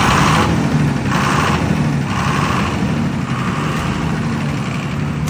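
125 kVA Cummins diesel generator set running at a steady speed just after its self-start, heard through its sound-proof canopy.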